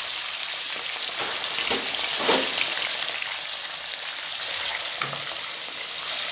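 Raw chicken pieces sizzling in hot oil in a karahi, the start of frying, while a spatula stirs and scrapes them through the oil with a few sharper strokes about two seconds in.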